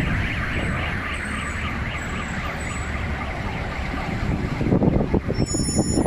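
Car alarms warbling with a quick repeating chirp, set off by a large explosion whose low rumble is still dying away. From about five seconds in, a louder, rough, uneven rumbling noise takes over.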